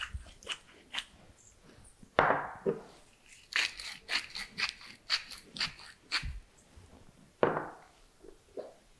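Hand-held spice mill grinding pepper and salt: a run of short crunching twists, with a couple of longer grinds about two seconds in and near the end.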